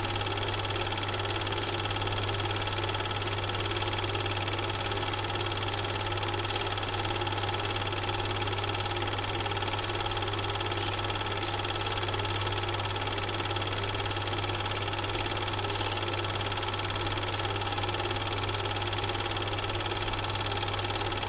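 A steady mechanical hum with several constant tones, running evenly and unchanging at a constant level.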